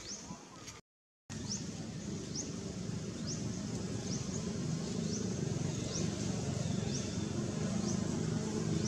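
A bird repeats a short, high rising chirp about once every three-quarters of a second, over a low rumbling noise that slowly grows louder. The sound drops out completely for about half a second near the start.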